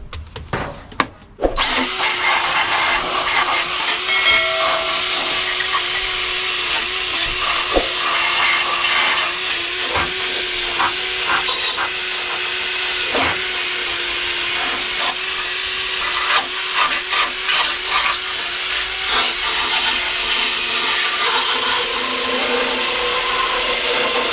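Electric drill running steadily under load against the car's sheet-metal bodywork, starting about a second and a half in, its motor tone wavering slightly as the load changes, with scattered clicks.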